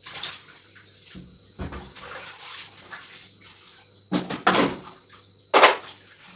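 Dishwashing by hand: water splashing and sloshing with a few clinks of dishes, in irregular bursts, the loudest about four and five and a half seconds in.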